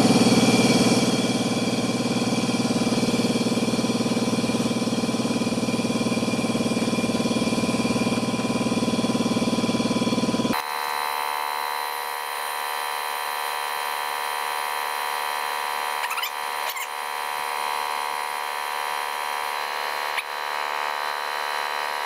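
Electric wheelbarrow air compressor's 15-amp motor and pump running steadily, charging the tank. About ten seconds in, the sound jumps to a higher, thinner version where the footage is sped up fourfold.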